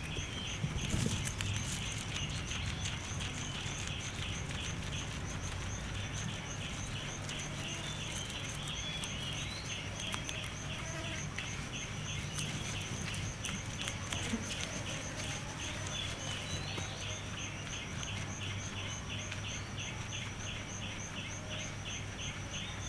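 A guinea pig chewing grass with faint, soft crunching clicks. Behind it, a steady chorus of insects chirps in rapid, even pulses.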